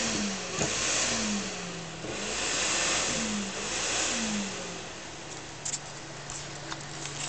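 Thermaltake PC cooling fan running loudly, a rush of air that swells and eases twice, with short falling hum tones as the speed shifts. About five seconds in it settles to a steadier, quieter hum, with a few small clicks near the end.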